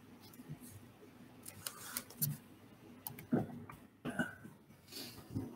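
Quiet room with a handful of short clicks and soft knocks, the loudest about three seconds in, and a few brief throat noises.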